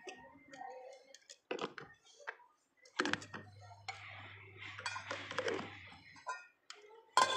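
Scattered metallic clinks and knocks of steel kitchen utensils, with a faint low hum for about three seconds in the middle.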